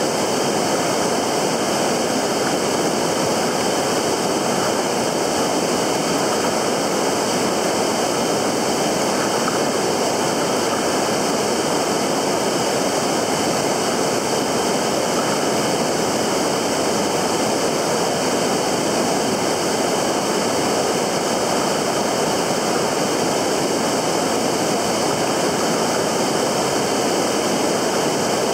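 Steady rush of flowing river water, an even noise that does not change.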